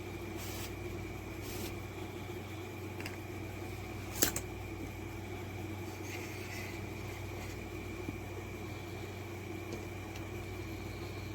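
A steady, even hum with a sharp click about four seconds in.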